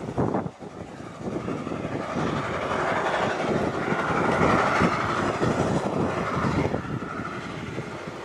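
Narrow-gauge Beyer-Garratt steam locomotive hauling a train of coaches past, a rapid run of exhaust beats and wheel rumble that swells in the middle and eases near the end.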